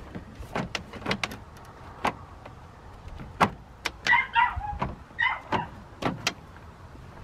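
Jeep Wrangler JL's plastic grille being pressed back into place on the front of the Jeep: a series of irregular sharp clicks and knocks as the plastic seats and bumps against the body.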